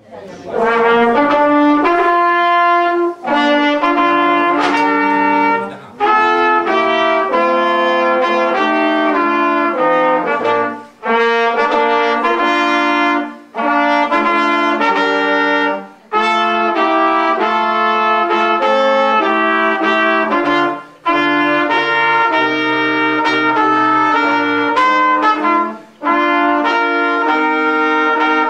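Brass trio of trumpet, trombone and a larger horn playing a melody together, note by note in phrases, with a short break between phrases every few seconds.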